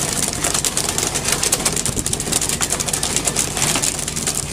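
A fishing boat's engine runs with a steady low hum under a constant rush of wind and sea, dotted with small crackles and clatter.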